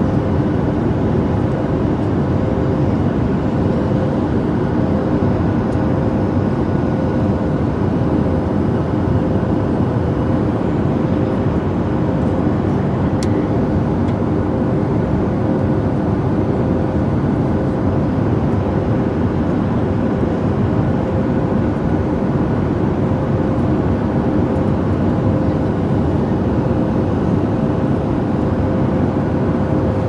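Airliner cabin noise: a steady rush of air from the overhead air-conditioning vents over the aircraft's low, even flight hum, with faint steady tones running through it.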